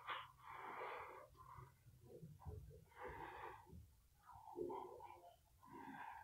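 Faint breathing close to the microphone, soft puffs of breath every second or two.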